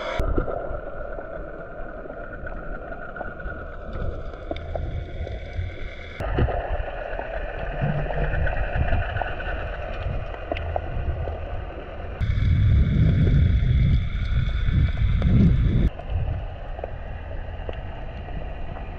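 Muffled water noise picked up by a GoPro's microphone underwater: a heavy low rumble with sloshing and gurgling. It changes abruptly several times, at cuts between clips, and is loudest for a few seconds just past the middle.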